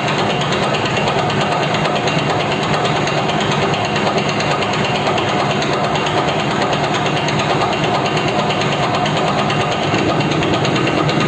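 Metal lathe running steadily during thread cutting on a hexagonal bar turned between centres, with a dense, even machine hum and rattle.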